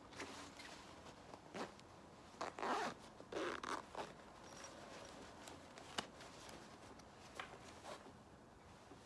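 Zipper on a black backpack's front pocket being run along its teeth, a short rasping zip twice near the middle, with light clicks of the slider and handling around them. It is the newly sewn-in replacement zipper being tried out.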